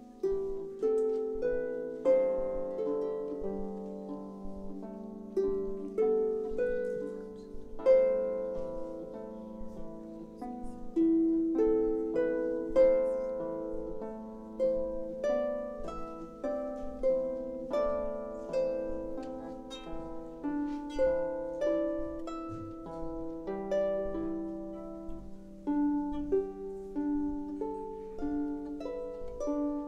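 Harps playing live: a flowing melody of plucked notes, each ringing and fading, over lower notes beneath.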